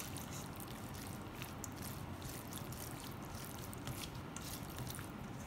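A plastic spatula stirring shredded chicken in a mayonnaise dressing around a stainless steel bowl: faint wet squishing with many small ticks and scrapes against the metal.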